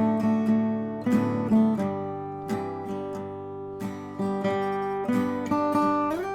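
Acoustic guitar music: picked and strummed notes ringing out one after another, with a note sliding up in pitch near the end.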